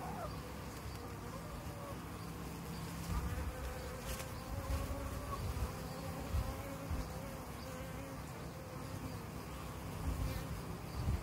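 Honeybees buzzing steadily as they fly in and out of a hive's entrance hole, a slightly wavering hum with several brief louder rushes.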